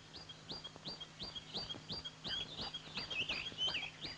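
A bird calling with a short chirp repeated about three or four times a second, growing louder as it goes.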